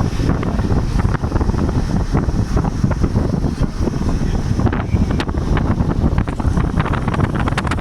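Wind buffeting the microphone of a moving vehicle over a steady low road rumble. Frequent short knocks and rattles come in, growing denser in the last few seconds.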